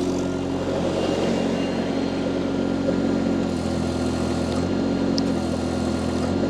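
Mini skid steer loader's engine running steadily while the sweeper attachment runs with its auxiliary hydraulic flow switched down, the pitch shifting slightly a few times.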